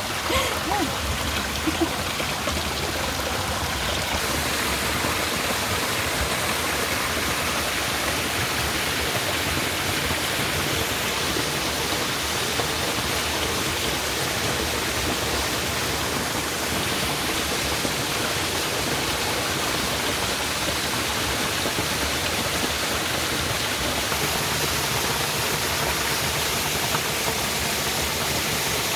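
Water rushing steadily over a waterfall, an even, unbroken noise.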